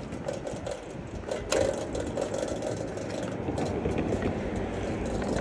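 City street traffic: vehicle engines running steadily, with a sharp click about a second and a half in.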